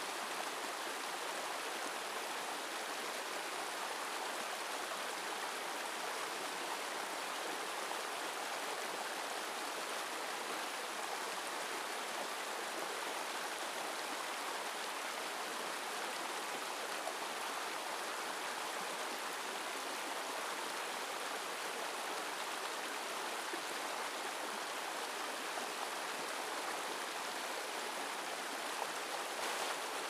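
Shallow rocky stream rushing over and between boulders: a steady, even rush of water with no break or change.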